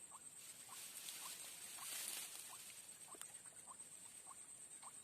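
Faint swamp animal sounds: a short chirp repeated about twice a second over a steady high-pitched insect-like hiss, which swells briefly about two seconds in.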